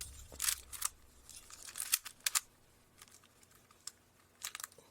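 Sharp plastic clicks of a Giiker smart Rubik's cube's layers being twisted, coming in three short clusters, done to wake the cube from sleep so it can pair.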